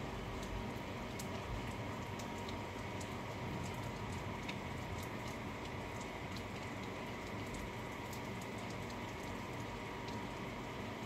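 Steady rain with scattered drops ticking irregularly on a nearby surface, over a faint steady hum.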